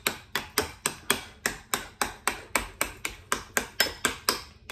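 A metal fork clinking rapidly against a glass mixing bowl, about four strikes a second, as it mashes hard-boiled egg yolks and mayonnaise into a smooth paste.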